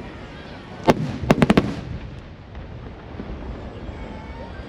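Fireworks bursting overhead: one sharp bang about a second in, then four quick bangs in a row, trailing off into a rumbling echo.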